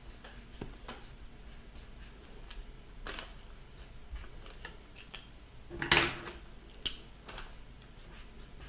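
Faint, scratchy strokes of drawing on paper, in short separate strokes, with a louder rustle about six seconds in.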